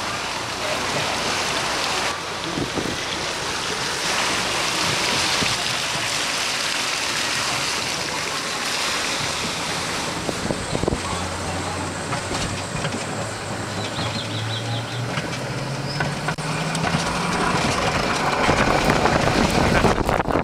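Bobsled ride car running along its track with a steady rush of wind noise and rumble, and a low hum that rises in pitch partway through as it picks up speed.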